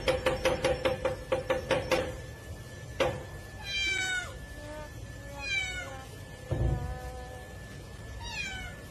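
A cat pawing at a metal door bolt and hanging padlock, rattling them in a quick run of about five knocks a second for two seconds, then one more knock. The cat then meows three times in short calls that fall in pitch.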